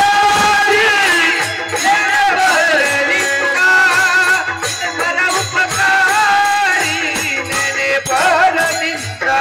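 Devotional kirtan singing: voices draw out a melody with wavering, sliding notes over steady held instrument notes, with small hand cymbals (taal) jingling along.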